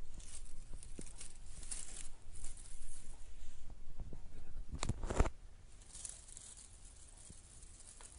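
Scratchy rustling and rubbing on soft fabric, with a brief louder rub and thump about five seconds in, then fainter rustling.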